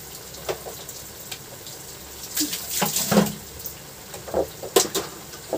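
Vegetables simmering in broth in a wok: liquid bubbling with scattered irregular pops and crackles, busier for about a second in the middle.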